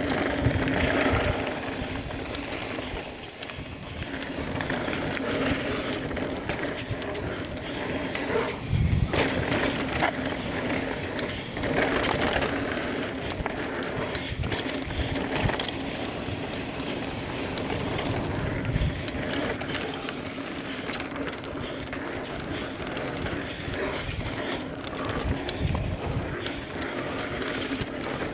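Mountain bike being ridden down a dirt trail: continuous rolling and rattling riding noise, with heavy thumps from hits about 9, 12 and 19 seconds in.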